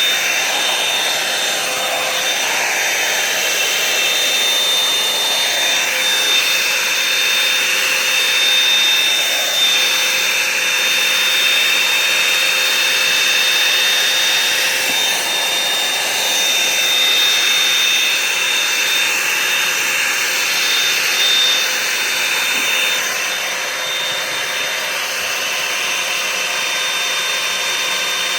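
Revlon One-Step hot-air brush dryer running steadily as it is drawn through long hair, a loud rush of air with a constant high whine from its motor.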